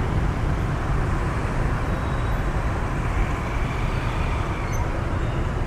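Steady rush-hour street traffic: the engines and tyres of cars and many motorbikes moving through a busy intersection.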